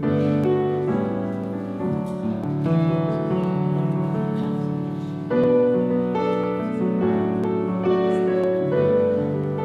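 Grand piano playing music in held chords that change every second or so.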